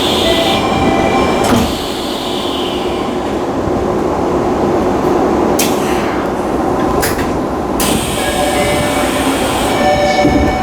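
Tokyu Meguro Line train door chime sounding in short steady tones, with the doors working: a knock about a second and a half in, then several short hisses of air. The chime tones sound again near the end, over the train's steady interior rumble.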